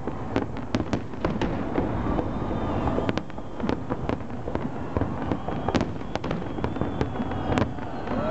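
Fireworks display at full intensity: aerial shells bursting in a dense, irregular run of bangs and crackles over a continuous rumble, with a couple of sharper cracks standing out in the second half.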